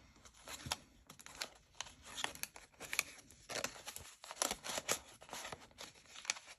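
Paper banknotes and a frosted plastic cash envelope being handled: a run of irregular crinkles and small clicks as the bills are slid out of and into the envelope.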